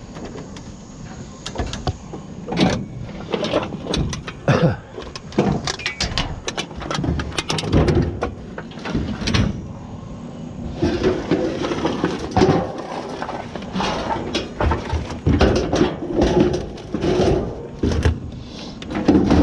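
Scrap metal being handled, with irregular knocks and clanks that come more densely in the second half.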